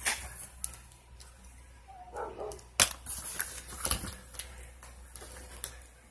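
Cardboard box and packaging being handled: scattered taps, clicks and rustles, with a sharp knock about three seconds in and a dull thump about a second later.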